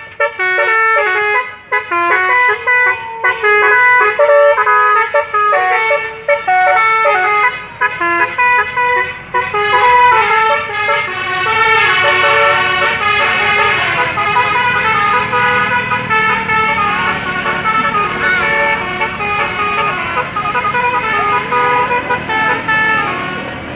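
Bus's 'telolet' musical air horn playing a melody of quick changing notes, with only short breaks between phrases.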